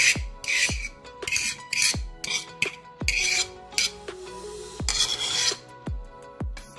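Mashed potato scraped with a wire potato masher out of a bowl into a frying pan: a series of uneven rasping scrapes. Background music with a steady beat plays under it.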